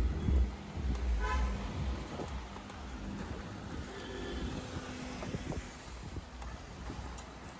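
Road traffic: a vehicle's low engine rumble fading away over the first two seconds, with a short car horn toot about a second in. After that, quieter street noise with scattered light clicks and rattles.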